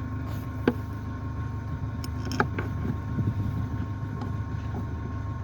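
Car engine idling steadily, with two light clicks, one under a second in and another about two and a half seconds in.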